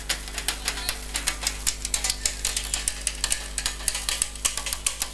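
Sharp percussive clicks struck in a fast, even rhythm, about five or six a second, over a steady low electrical hum.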